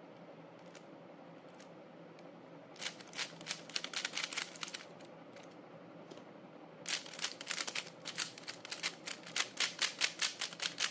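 GAN 12 Maglev magnetic 3x3 speed cube being turned fast, a rapid run of clicking turns for about two seconds, then a longer run from about seven seconds in to the end.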